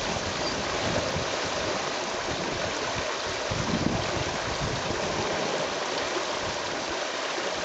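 Steady, even hiss of rain and moving water, with no distinct splashes.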